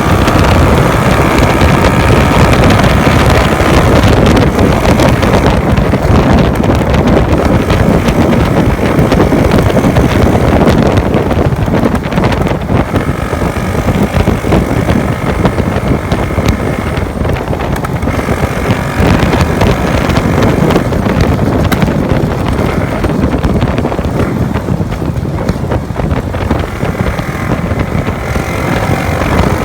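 Freshly overhauled Honda Wave 110 single-cylinder four-stroke engine running at highway speed, under heavy wind rush on the microphone. Its pitch rises and falls a little as the throttle changes.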